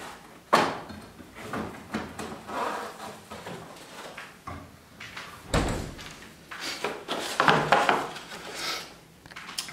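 Kitchen cupboard doors and drawers being opened and shut, with several sharp knocks and clatters of things being taken out; the loudest come about half a second in and about five and a half seconds in.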